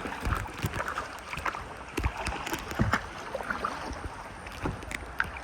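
Kayak paddle strokes splashing in river water, with scattered irregular knocks and clicks.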